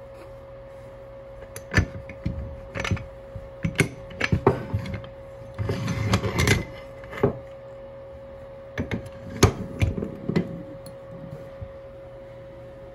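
Handling noise from a 600 A renewable cartridge fuse being taken apart: knocks and clicks of its brass end cap and copper knife-blade element, with a stretch of scraping about halfway through as the element slides out of the fibre tube. A faint steady hum runs underneath.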